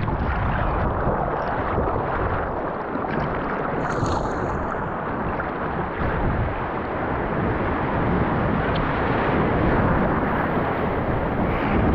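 Seawater rushing and surging around a paddled board as swell washes through a rocky gap, heard close to the water surface with wind buffeting the microphone. A steady, loud wash with a brief hiss of spray about four seconds in.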